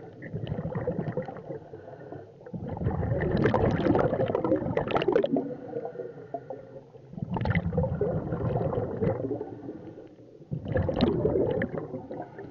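Scuba diver breathing underwater through a regulator: three loud gurgling rushes of exhaled bubbles a few seconds apart, with quieter stretches between breaths.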